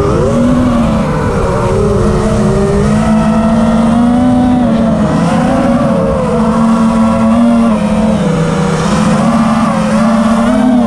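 FPV quadcopter's electric motors and propellers whining, the pitch rising and falling as the throttle changes, over a low rumble.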